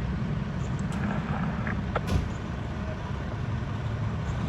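Fire apparatus engine running steadily with a low-pitched sound, and a brief click about two seconds in.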